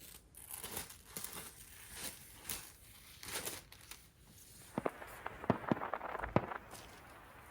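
Packaging being handled: quiet rustling and crinkling, followed by several sharp clicks or taps between about five and six and a half seconds in.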